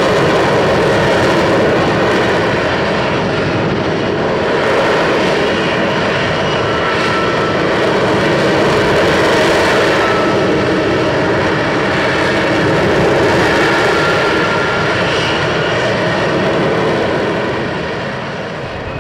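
Lockheed Martin F-35B's F135 jet engine running loud and steady, a continuous heavy rush of jet noise with faint whining tones on top, easing slightly near the end.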